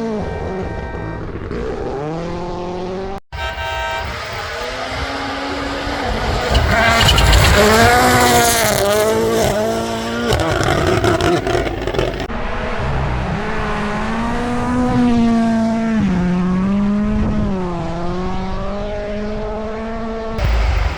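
Rally car engines at high revs, their pitch climbing and dropping with gear changes and lifts as the cars pass close by, loudest in the middle. The sound cuts out sharply about three seconds in and changes abruptly twice later, as separate passes are cut together.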